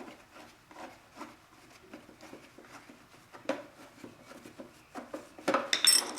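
Metal parts of an autoclave being handled during a teardown: light clicks and knocks, then a louder metallic clatter with a brief high ring near the end.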